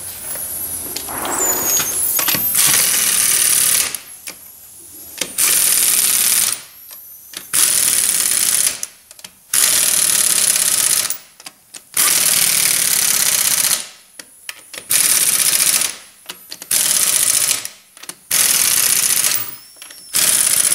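Impact wrench hammering lug nuts tight on a wheel, in repeated bursts of one to two seconds with short pauses between, about nine bursts as it goes from nut to nut.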